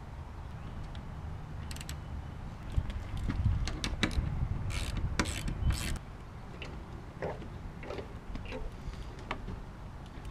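Metal clicks, knocks and scrapes from handling the steel-and-aluminium rear door of a Land Rover Series II and its hardware, loudest in a cluster of sharp clicks in the middle, over a low rumble.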